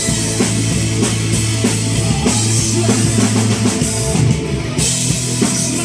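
Live rock band playing an instrumental passage between vocal lines: drum kit, electric guitar and bass.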